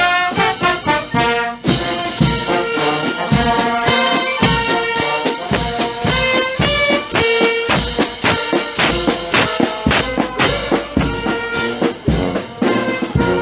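A marching brass band playing live close by: trombones, trumpets and saxophones carry the tune over a snare and bass drum keeping a steady beat, with a sousaphone on the low part.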